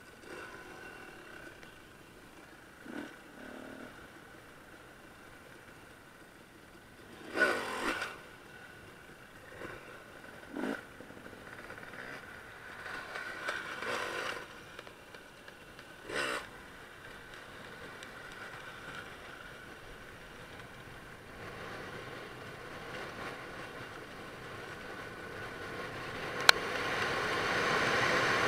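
Enduro motorcycle running, with several sharp knocks and scrapes. The sound grows steadily louder over the last several seconds.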